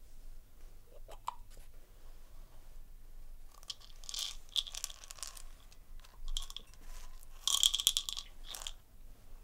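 Plastic prescription pill bottle being opened, with a few clicks from the cap about a second in, then small hard tablets rattling as they are shaken out into a palm, the loudest rattle near the end.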